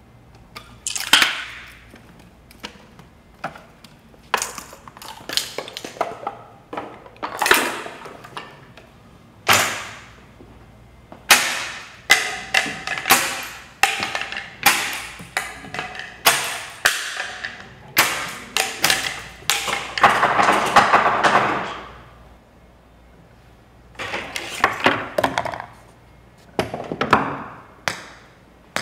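Rube Goldberg machine running: balls rolling and dropping along wall-mounted tracks and ramps, setting off a long series of sharp clacks, taps and knocks, some with a short ring. A longer rolling run of about two seconds comes a little past the middle.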